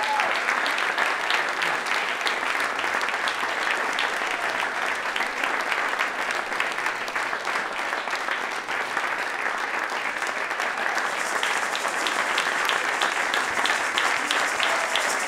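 Audience applause, a steady dense clapping from a large crowd, with sharper single claps standing out in the last few seconds.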